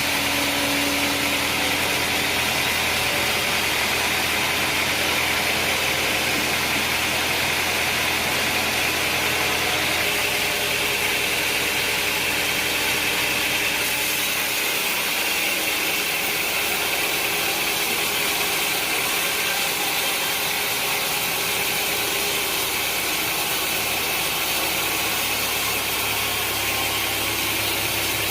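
Sawmill machinery running steadily. Its low hum fades about halfway through and comes back near the end.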